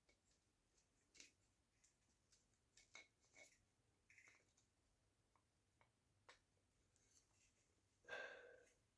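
Near silence with faint, scattered clicks and taps of small parts being handled as a die grinder's armature is worked into its housing, and a brief, slightly louder rustle or exhale about eight seconds in.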